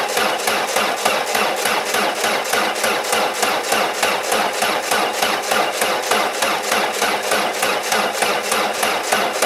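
Peugeot 205's 1.4 L TU3 four-cylinder petrol engine being cranked by its starter on jumper leads in −10 °C cold, turning over slowly at about four to five even beats a second without catching.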